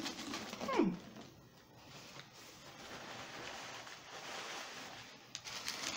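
Close-up chewing of a sandwich with crunchy potato chips, a crackly, crunching texture. A short falling tone comes just under a second in.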